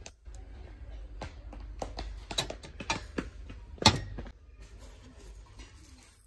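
A decorated glass pitcher being handled in its cardboard display box: a few light knocks and clinks of glass against box and glassware, the loudest about four seconds in, over a low steady hum.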